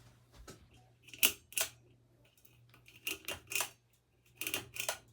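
About seven sharp clicks, mostly in pairs, over a faint low steady hum: a ceiling fan's pull-chain switch being worked.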